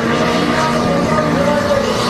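Turbocharged race car's engine running hard, with tyres squealing in a slide.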